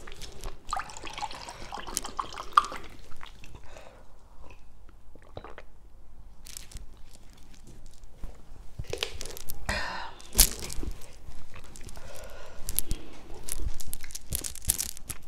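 Close-miked chewing and crunching of papaya salad and raw vegetables, with irregular crunches, clicks and wet mouth sounds, busier and louder in the second half.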